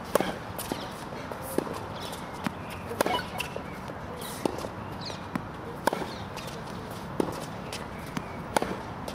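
Tennis ball struck by a racket in a baseline rally: sharp pops about every second and a half, with lighter taps in between.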